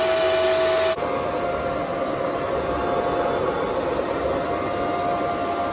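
Antminer S9 ASIC miner's 120 mm cooling fans running at full speed with a silencer shroud fitted: a steady rush of air with a held whine. It is louder and hissier for about the first second, then settles into a softer, even whisper.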